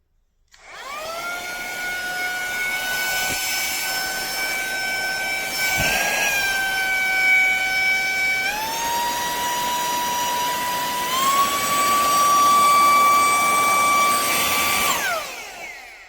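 Cordless handheld vacuum cleaner switched on, its motor whining up to speed, then stepping up twice to higher pitches as it is switched through its three speed settings, before being switched off and winding down with a falling whine.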